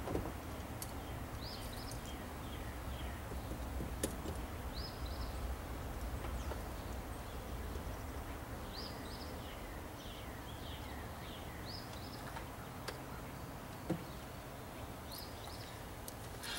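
Birds chirping: short notes falling in pitch, in small groups every few seconds, over a steady low outdoor rumble, with a couple of sharp clicks about four seconds in and near the end.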